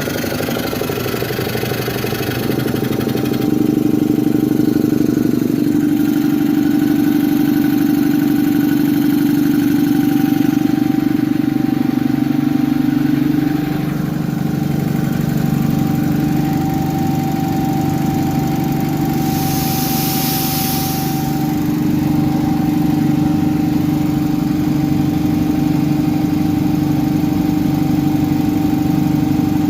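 Workshop machinery starting and running steadily on power from a vintage Lister diesel generator: a continuous engine-like hum that steps up in pitch about four seconds in and shifts again near fourteen seconds as the load settles, with a thin steady whine over it. A short hiss of air comes about twenty seconds in.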